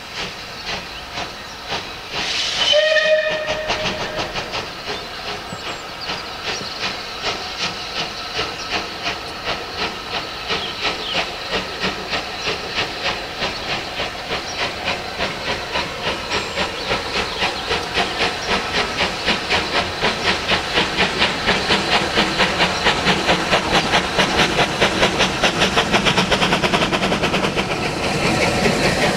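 Rebuilt Bulleid Battle of Britain class Pacific 34053 'Sir Keith Park' gives a short whistle about three seconds in, then pulls away. Its three-cylinder exhaust beats quicken and grow louder as it gathers speed, over a steady hiss of steam.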